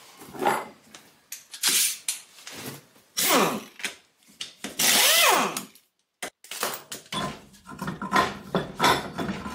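Pneumatic impact wrench undoing a van's wheel nuts in a series of short bursts, its whine rising and falling as it spins up and runs down.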